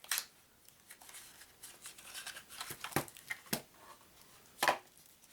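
A card-game box being opened and handled: a few sharp clicks and taps, with light paper and cardboard rustling between them.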